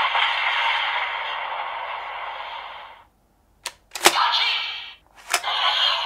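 DX Valvarusher toy sword-gun playing an electronic finisher sound effect through its small speaker, which fades out about three seconds in. Then come sharp plastic clicks of the toy being worked, and two short electronic sound effects, each starting on a click.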